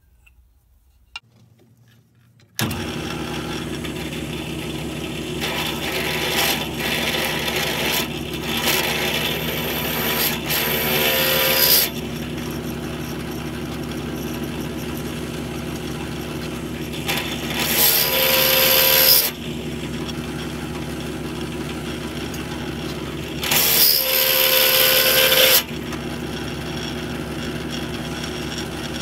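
A drill press is switched on after a moment of near silence, and its motor runs steadily at 2250 RPM. A large bit cuts into a 5/32-inch steel bar in several louder, harsher spells, each lasting a few seconds, about five times.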